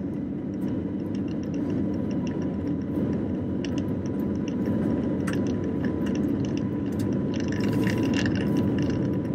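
Airliner cabin noise while the plane rolls along the runway: a steady rumble from the engines and the airflow, with a faint steady tone and light ticks and rattles from the cabin. The rattles thicken into a brief clatter about eight seconds in.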